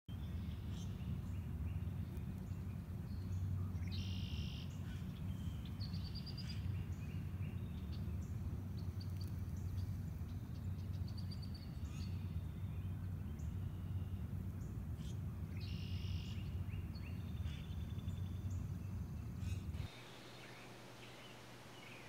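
Songbirds singing: short high trills and quick runs of notes, heard over a steady low rumble that cuts off suddenly near the end.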